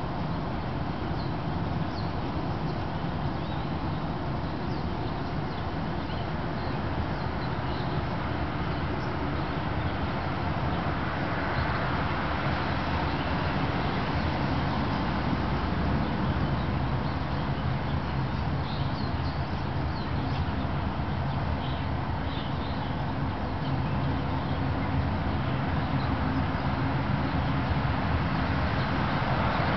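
Lawn mower running steadily while mulching leaves, its sound rising a little near the end.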